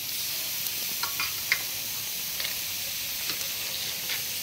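Marinated chicken pieces sizzling on a charcoal grill: a steady hiss with scattered short crackles and pops.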